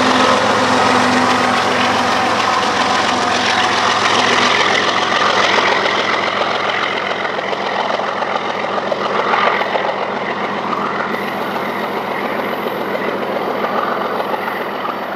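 Diesel-electric locomotives at the rear of a BNSF coal train running past and pulling away: a steady low engine drone over wheel and rail noise. One held engine tone drops out about four seconds in, and the sound slowly fades near the end.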